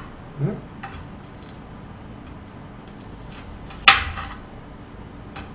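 Kitchen knife slicing green chili peppers on a plastic cutting board: a few soft, scattered taps of the blade on the board, and one sharp knock about four seconds in.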